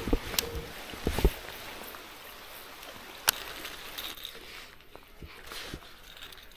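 Steady hiss of rain falling on the lake, with a few sharp clicks and soft knocks from a baitcasting rod and reel as a big bait is cast and reeled in.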